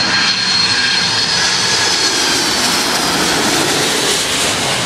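Boeing 747's four jet engines on final approach, a steady loud rush with a high whine that slides lower as the airliner comes in low and passes almost overhead.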